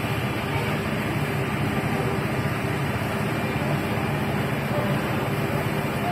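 A vehicle engine running steadily: a low, even hum over constant street noise.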